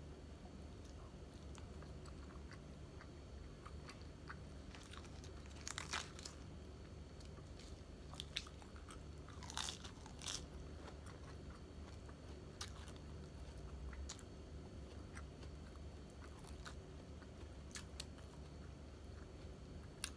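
Close eating sounds: chewing fried tilapia and crisp lettuce, with scattered wet mouth clicks and a few louder crunching bites about six and ten seconds in. A faint low hum runs underneath.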